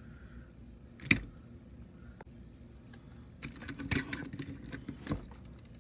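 A toy train engine handled and rolled across a tabletop by hand, its wheels and body clicking and clattering: one sharp click about a second in, a run of clattering clicks around four seconds in, and another click a second later.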